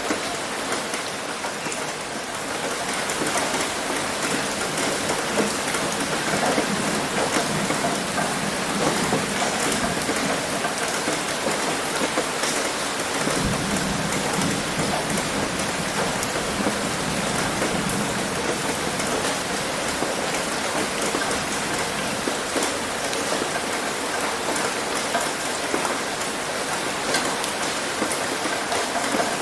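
Heavy rain hitting a roof: a steady, dense patter of drops. About halfway through, a low rumble comes in suddenly and fades over several seconds.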